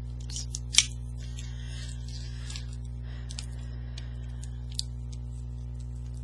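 Light rustling and tapping of a cardstock strip being handled, with a sharp click about a second in and a smaller one later, over a steady low electrical hum.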